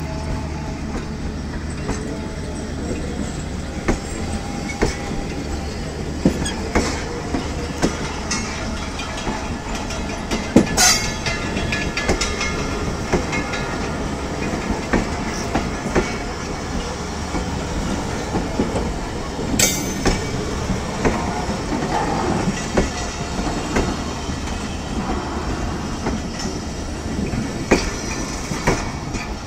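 Train rolling along the track: a steady rumble dotted with clicks and knocks of the wheels over rail joints, with sharper bangs about eleven and twenty seconds in.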